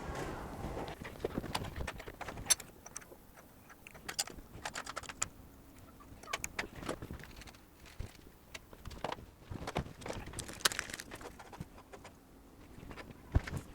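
Irregular light clicks and taps of small metal tools and a phone logic board being handled on a workbench, as the board is fitted onto a testing board. A few sharper clicks stand out, one about two and a half seconds in, one near eleven seconds and one near the end.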